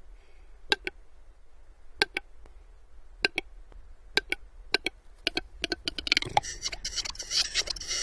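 Western capercaillie cock's display song: sharp single and double clicks, spaced at first and coming faster and faster, a louder pop about six seconds in, then a dense scratchy grinding phrase.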